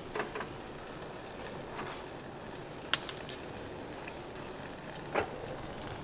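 Kitchen clatter over a steady background hiss: a few sharp clinks and knocks as a stainless mesh noodle strainer is handled over the clay pots on the gas range, the sharpest about three seconds in.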